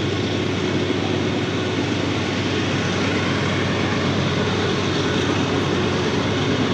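A steady, unbroken engine drone with a low hum under a wide rushing noise, holding the same level throughout.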